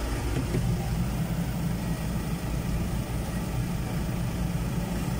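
Fendt 310 tractor's four-cylinder diesel engine running steadily, heard from inside the cab as an even low hum.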